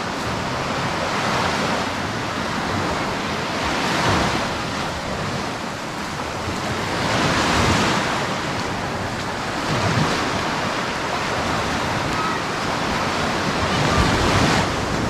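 Ocean surf on a sandy beach, a steady wash with a wave breaking about every three seconds, four in all. Wind buffets the microphone with a low rumble.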